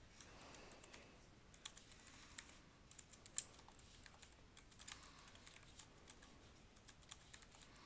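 Faint typing on a computer keyboard: irregular, quiet key clicks as a name is typed in.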